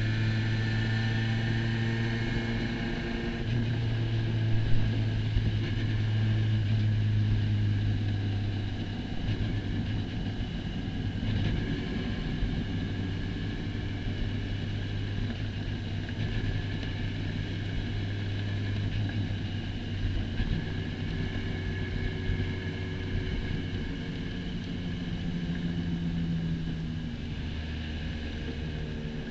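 Spec Racer Ford Gen3's four-cylinder engine running steadily at moderate revs, with an even, unchanging note. Its pitch drops lower near the end.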